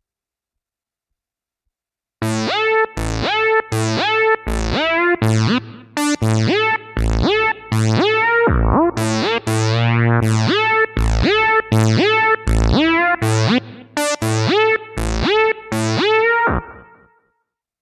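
Roland System-8 synthesizer playing a Jupiter-8 preset: a run of plucky notes, each opening bright and quickly closing to a dull tone, over low bass notes. It starts about two seconds in and stops near the end.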